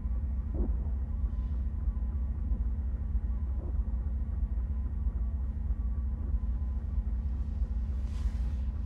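Film sound design of a spaceship cockpit interior: a steady low rumble with a faint electrical hum, and a short hissing rush near the end.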